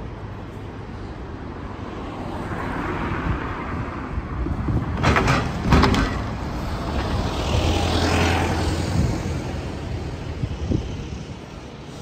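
Road traffic going past: the noise of vehicles swells and fades, with a few sharp knocks about five to six seconds in and a low engine hum about eight seconds in.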